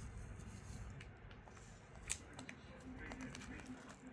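Slime being kneaded and stretched by hand, with faint squishing and small crackling clicks and one sharper snap about two seconds in.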